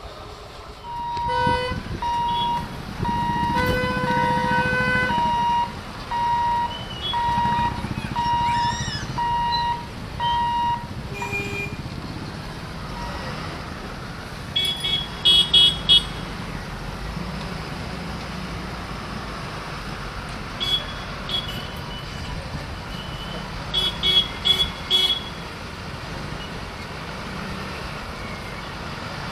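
Road vehicle horns at a level crossing: a regular series of short high beeps with one longer, lower horn blast among them, then clusters of short honks from waiting motorbikes and trucks, over the steady rumble of idling engines.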